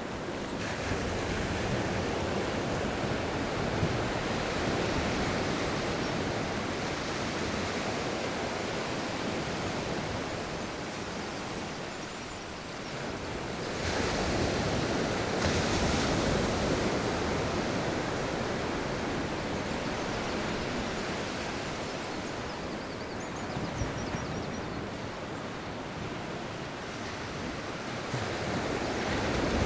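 Sea waves breaking and washing up a beach, with wind, as a continuous rush. It swells as a wave comes in about a second in, again around the middle and again near the end.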